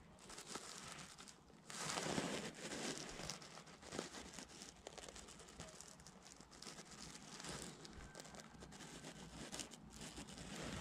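Irregular rustling and crinkling handling noise close to the microphone as fingers work fishing line and tackle and a jacket sleeve brushes past. It is loudest about two seconds in.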